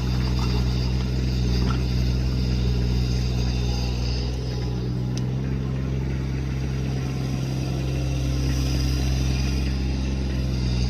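Kubota U17 mini excavator's three-cylinder diesel engine running steadily at a constant speed.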